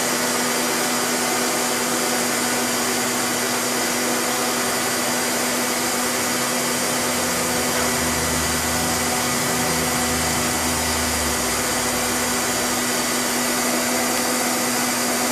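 Hitachi Seiki HiTec-Turn 20S III CNC lathe running through its program cycle: a steady machine whir with a constant hum. About halfway through, a deeper low tone comes in for a few seconds.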